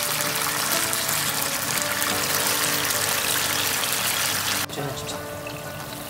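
Horse mackerel fillets sizzling in a bubbling oyster-sauce glaze in a frying pan, a dense steady hiss that cuts off abruptly about three-quarters of the way through. Background music plays throughout.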